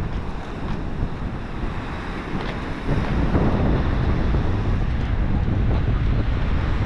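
Strong wind buffeting the microphone, a low gusting rush that grows louder about three seconds in.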